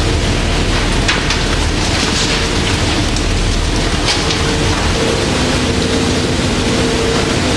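Loud, steady rushing of water, like spray or rain, over the low hum of ship machinery aboard a beam trawler, with a faint tone that comes and goes. A few short sharp splashes or clicks come about one, two and four seconds in.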